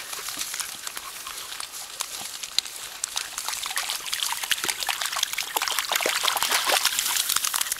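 Miniature schnauzer puppies splashing through shallow pond water: a continuous run of small, quick splashes that grows louder about halfway through.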